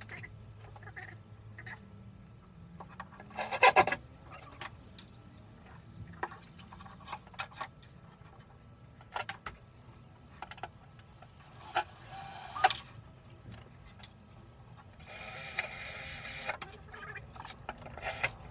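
Cordless drill running in three short bursts, the loudest about three and a half seconds in, among scattered knocks and clicks of wood.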